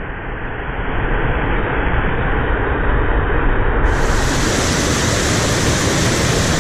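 Waterfall rushing close by: a loud, steady wash of water noise that swells a little over the first second or so.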